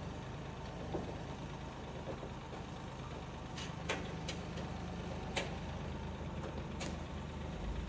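An engine running steadily at idle, with a handful of short, sharp knocks over it.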